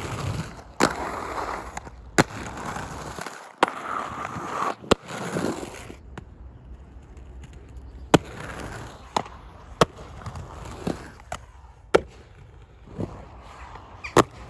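Inline skates on concrete: wheels rolling with a rough steady noise, broken by about a dozen sharp clacks as the skates land from jumps and strike ledges.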